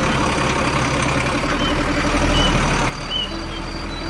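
A truck engine sound running steadily at idle. It drops noticeably in loudness about three seconds in.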